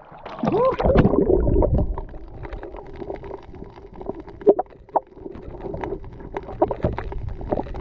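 Water at the surface churning and gurgling as the camera goes under, then the muffled sound of being underwater: a steady dull hum with many scattered sharp clicks and crackles.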